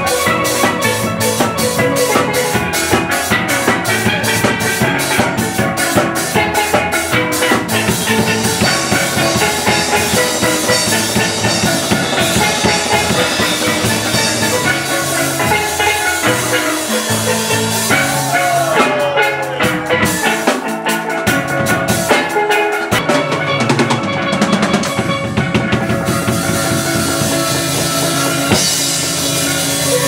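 Steel band playing live: steel pans play a ringing melody over a drum kit keeping a steady beat, with the strikes densest and most even in the first several seconds.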